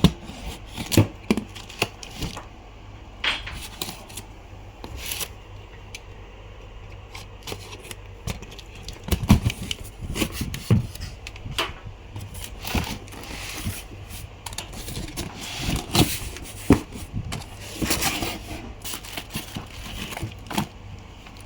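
Hands handling a new inkjet printer and its packaging: irregular clicks, knocks and short rustles and scrapes, several a second at times.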